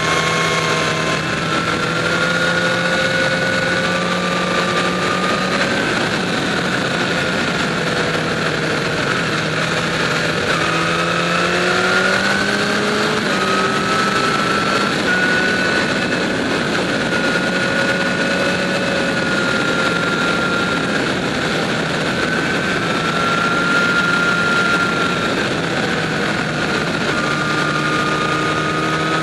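Motorcycle engine running at road speed, with wind and road noise over the microphone; the revs dip about ten seconds in and climb back over the next few seconds, then hold steady.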